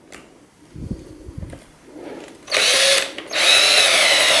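Handheld electric drill starting up a little over halfway through and boring into a wooden board, a loud, steady motor whine that cuts out briefly and starts again, after a few soft knocks as the bit is set in place.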